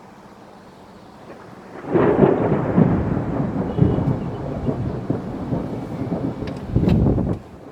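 A long peal of thunder: it rumbles in about two seconds in and rolls on for some five seconds, with a last loud surge just before it drops away near the end.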